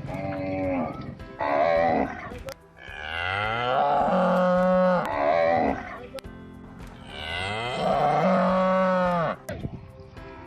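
Cattle mooing repeatedly. There are two long moos, each rising in pitch and then held for about two seconds, with shorter moos before and between them.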